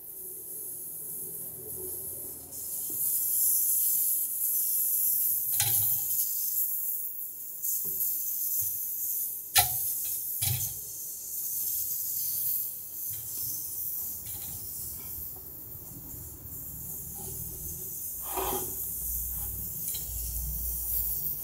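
Detergent-soaked sponge squeezed and rubbed over a freezer's copper refrigerant tubing in a soap-bubble leak test: wet squishing and a steady fizzing hiss of foam, with a few sharp clicks, the loudest about ten seconds in.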